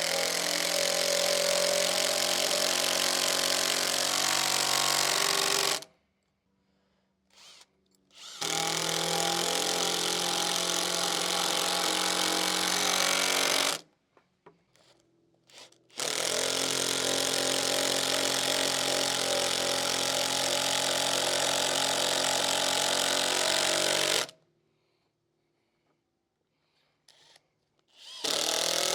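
Power drill driving screws into a wooden bench, the motor running in long runs of about five to eight seconds each, three times, with short pauses between and a fourth run starting at the very end.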